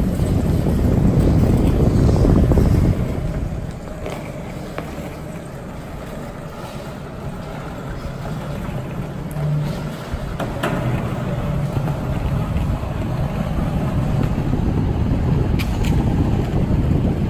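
Skateboard wheels rolling over a concrete garage floor, a steady low rumble that is loudest for the first few seconds, eases off, then builds again towards the end. A sharp click about ten seconds in.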